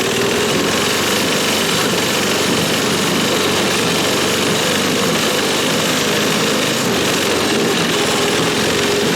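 Small single-cylinder four-stroke Tecumseh H35 engine of a homemade snowmobile running steadily at a constant speed.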